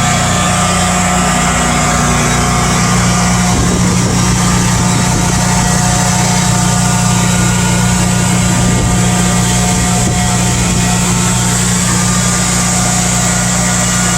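Portable generator engine running loud and steady at constant speed, supplying backup power during a power outage.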